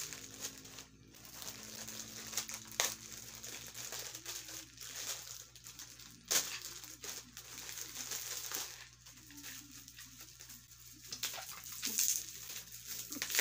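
Plastic courier pouch crinkling and rustling as it is opened by hand, with a few sharper crackles.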